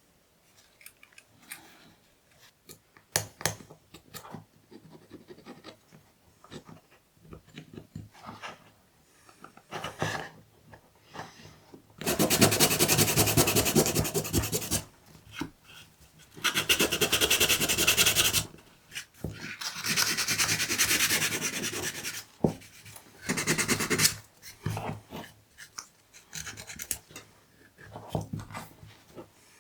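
Hand rubbing and scraping with an abrasive, in four runs of a few seconds each, between quieter scattered clicks and handling noises.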